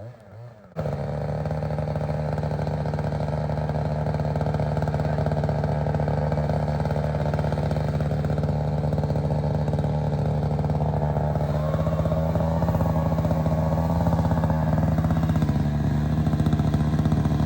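Two-stroke chainsaw running steadily at high revs as it cuts into a tree, cutting in suddenly just under a second in; its pitch rises slightly about twelve seconds in.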